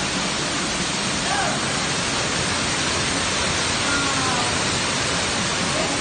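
Waterfall seen from behind its curtain of falling water: a steady, loud rush of water crashing down close by.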